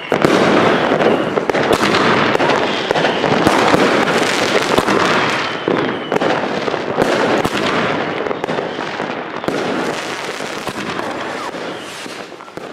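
New Year's Eve fireworks and firecrackers going off: a dense, continuous crackle with many sharp bangs, dying away near the end.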